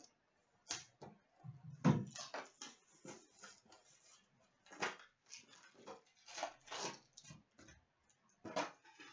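Trading card packs being opened and handled: wrappers crinkling and cards rustling and sliding in short, irregular bursts.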